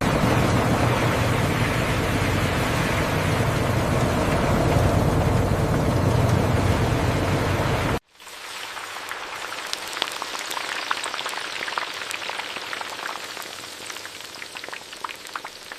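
Hot oil sizzling as potato slices deep-fry, a dense bubbling noise with a low hum underneath. About eight seconds in it cuts abruptly to a quieter sizzle with many sharp crackles.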